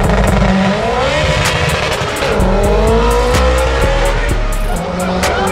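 Music with heavy bass notes and a quick, even hi-hat beat, over a car engine revving up and rising in pitch twice.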